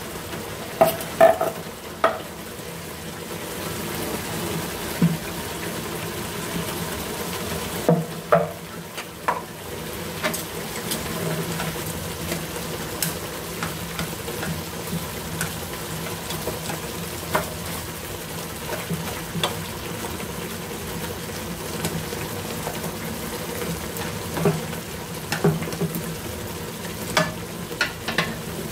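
Meat and tomato sauce simmering in a nonstick frying pan, a steady bubbling hiss. Scattered soft knocks as slices of luffa drop in off a wooden board and are moved about with chopsticks, a cluster about a second in, another around the middle, and more near the end.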